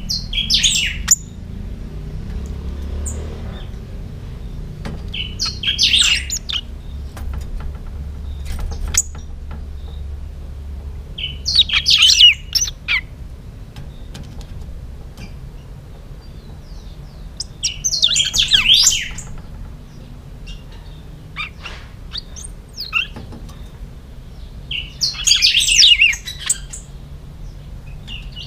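Caged picahueso (southern yellow grosbeak) singing: five short, high warbled phrases about six seconds apart, with a few single notes between them.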